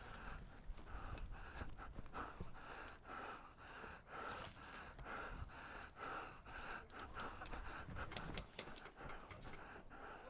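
A person panting heavily, with quick breaths about twice a second, and short sharp clicks scattered throughout.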